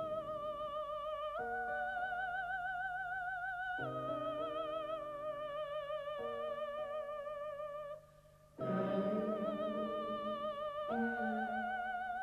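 Operatic soprano voice singing a slow line of long high notes with a wide, even vibrato, over sustained low accompaniment chords. The music breaks off briefly about eight seconds in, then picks up again.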